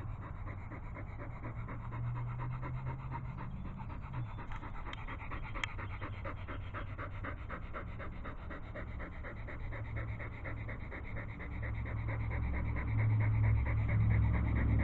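German Shepherd panting in quick, even breaths. A low hum underneath grows louder over the last few seconds.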